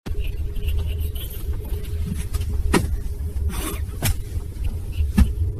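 Steady low rumble inside a car's cabin, with a faint steady hum and a few short light knocks about three, four and five seconds in.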